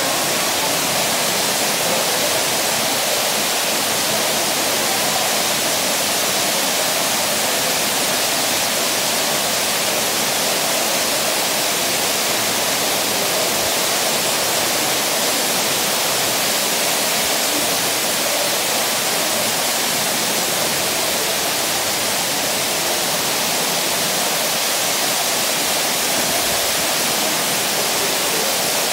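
Steady rushing of a waterfall inside a cave: falling water makes a constant, unbroken hiss throughout.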